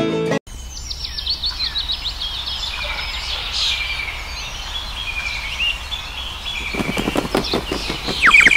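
Songbirds chirping and trilling, many quick high notes overlapping, with a louder run of rapid pulsing notes near the end.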